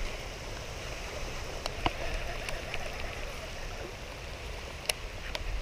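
Heavy rain falling in a steady hiss, with a few scattered sharp taps.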